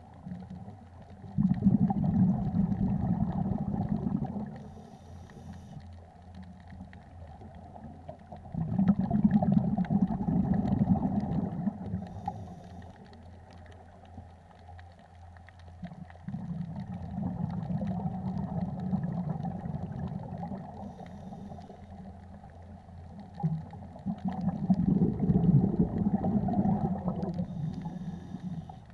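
Scuba diver breathing through a regulator underwater: four long exhalations of rumbling bubbles, one every seven to eight seconds, with quieter gaps for the inhalations between.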